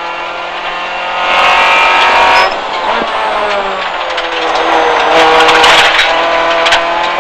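Honda Civic rally car's swapped B16A 1.6-litre DOHC VTEC four-cylinder engine pulling hard, heard from inside the cabin at speed. The engine note dips about two and a half seconds in, with a click soon after, then builds again.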